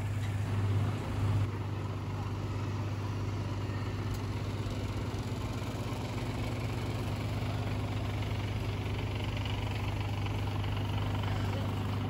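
Large truck's diesel engine idling with a steady low hum, with two brief louder sounds about a second in.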